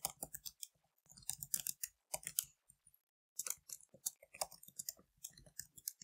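Computer keyboard typing: quick, irregular keystrokes, with a short break about halfway through.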